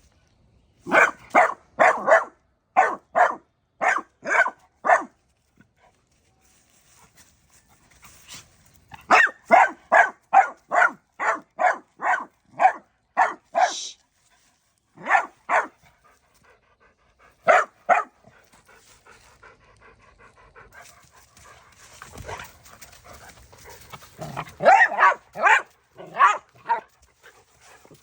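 A dog barking in runs of quick barks, about two a second, with gaps of a few seconds between the runs.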